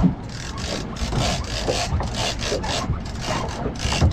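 Big-game fishing reel being cranked hard, a rhythmic rasping about three to four strokes a second as line is wound back onto the spool against a hooked blue marlin.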